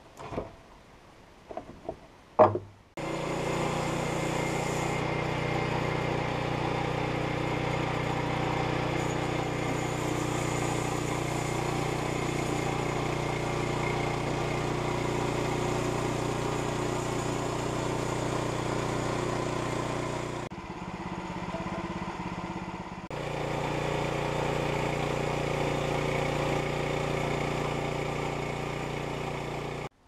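A few knocks, then the gasoline engine of a Woodland Mills portable bandsaw mill runs steadily at cutting speed as the mill head works along a log. The sound dips for about two seconds two-thirds of the way through, then returns and cuts off at the end.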